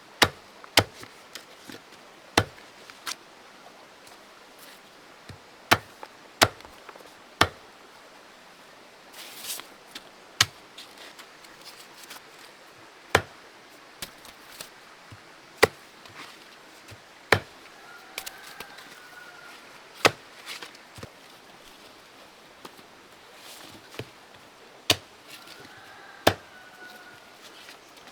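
Sharp chopping strokes, a blade striking wood or plant stalks about once every one to three seconds at an uneven pace.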